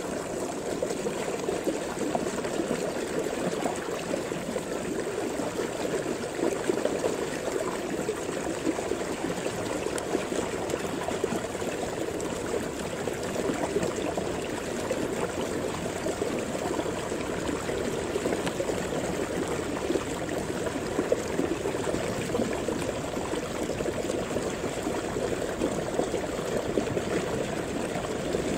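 Steady rushing of flowing water, even throughout, with no distinct strokes or rhythm.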